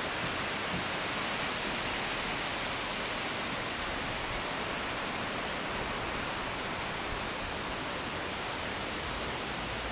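Steady rush of wind in trees, picked up by a Sony RX100's built-in microphone covered with a home-made lens-cloth wind muff.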